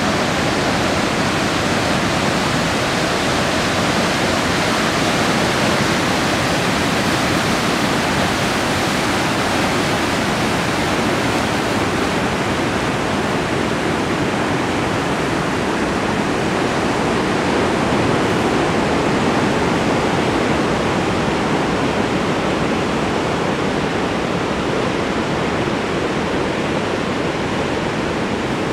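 Steady, unbroken rush of moving water: surf breaking and tidal water surging at a river mouth.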